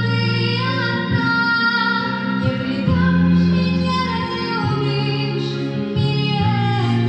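Young female singer performing a song live into a microphone over an amplified backing track, holding long sung notes above steady bass notes.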